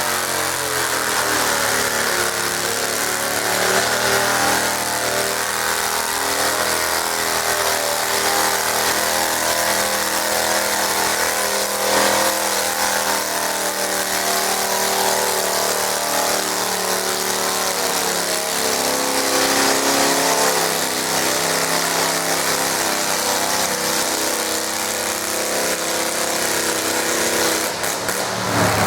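Garden tractor engine running hard under load while pulling a weight sled, its pitch wavering up and down.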